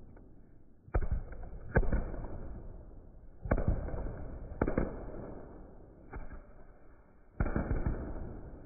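Firecrackers going off: about six sharp bangs at uneven gaps, the first about a second in and the last near the end, each one fading away over a second or so.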